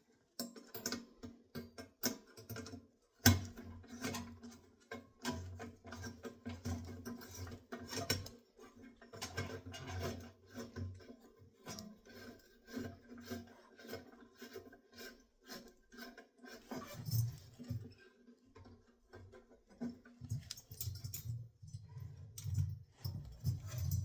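Scattered small clicks, scrapes and rubs of screws and sheet-metal parts being handled as two screws are taken out of an oven's bake element part, with one sharper knock about three seconds in.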